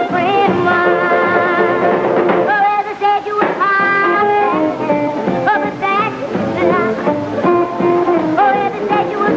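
A young girl singing a rock and roll song with a band backing her.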